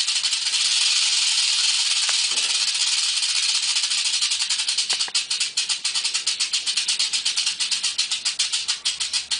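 Rattlesnake shaking its tail rattle in a continuous dry, high buzz that turns pulsing and uneven about halfway through.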